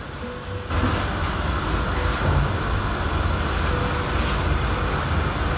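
Hot cooking oil sizzling steadily around a single test chip in a frying pan, a sign the oil is hot enough for frying. It turns louder and hissier about a second in, with a low rumble underneath and a few faint pops.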